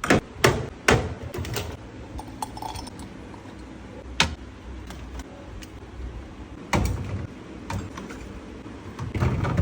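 Scattered sharp clinks and knocks as items are handled and set down in a fridge, with shelves and containers knocking together. The knocks come several times in the first two seconds, then singly a few seconds apart.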